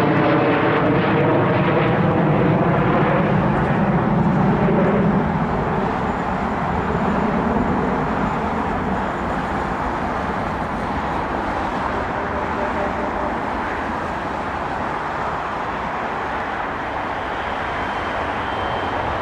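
Jet engines of a Boeing 777-200LR airliner. Several whining tones drop slightly in pitch over the first five seconds, over a loud rushing noise that then eases off into a steadier, slowly fading rumble.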